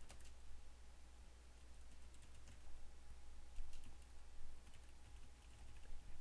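Faint keystrokes on a computer keyboard, typing at an uneven pace, over a steady low hum.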